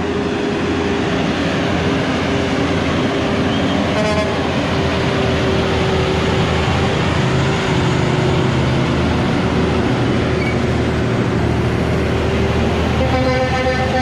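Diesel engines of loaded Kenworth tractor-trailers running hard as the trucks climb a steep grade and pass close by. A short horn toot comes about 4 seconds in, and an air horn sounds near the end.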